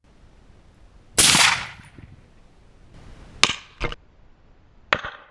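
Suppressed .308 AR-10 rifle fired about a second in, its report dying away over about half a second. Three shorter, sharp cracks follow at roughly three and a half, four and five seconds in.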